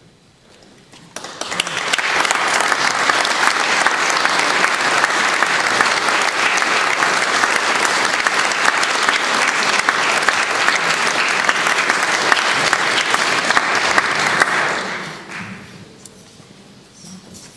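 Concert audience applauding. The applause starts about a second in, quickly builds to a steady level, then fades out near the end.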